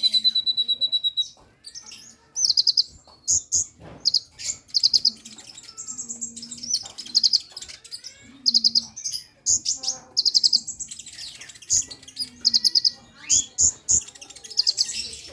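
Sunbird (kolibri ninja) singing: loud, high-pitched trills, each a quick run of rapid pulses about half a second long, repeated again and again with short gaps. It is the trilling song of a bird in breeding condition.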